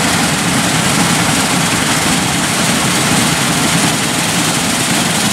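Claas Lexion 7500 Terra Trac combine harvester running steadily while cutting and threshing soybeans: an even, dense mechanical noise of engine and threshing works, a low hum under a wide hiss.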